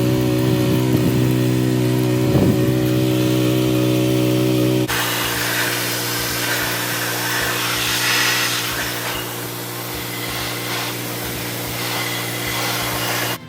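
A small motor running with a steady hum; about five seconds in it cuts abruptly to a slightly quieter, similar motor sound with a hiss and some light clatter.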